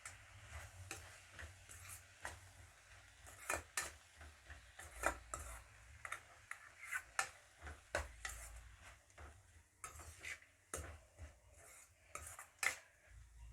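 Spoon stirring radish leaves frying in a kadai: irregular scrapes and clinks against the pan, several a second, over a faint low hum.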